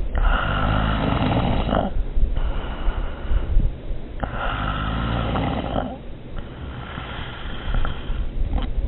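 A person snoring loudly, in an even rhythm: two long, loud snores of nearly two seconds each, alternating with softer, shorter breaths.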